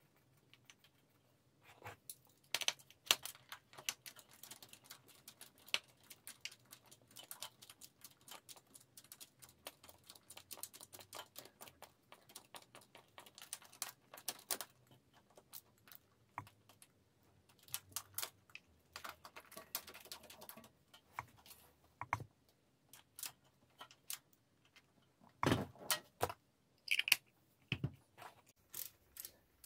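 Socket ratchet clicking in quick runs as it turns the rocker cover bolts on a motorcycle engine's cylinder head, with a few louder metallic knocks near the end.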